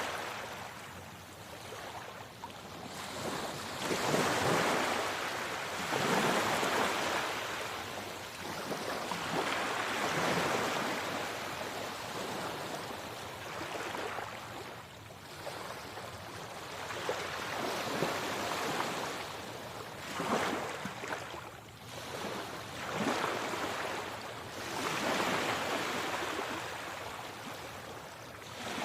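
Sea waves surging and falling back: a rushing wash that swells and fades every two to four seconds.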